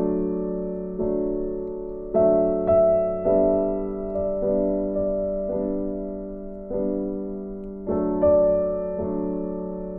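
Slow background piano music: a note or chord struck about once a second, each left to fade.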